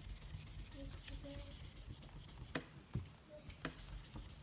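Magic eraser wet with rubbing alcohol scrubbing Sharpie off a cabinet door: quick, faint back-and-forth rubbing strokes. Three sharp light knocks come in the second half.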